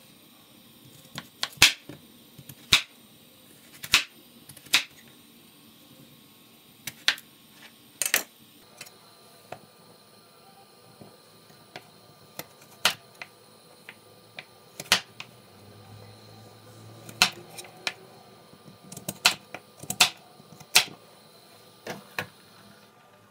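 Chef's knife cutting raw sweet potato on a cutting board: irregular sharp knocks of the blade hitting the board, roughly one a second, some in quick pairs.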